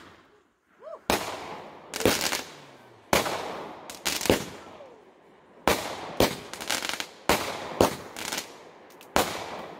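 Competition Fireworks' Grape Soda multi-shot firework cake firing: about a dozen sharp reports in irregular succession, each trailed by a fading hiss, with a short lull around the middle.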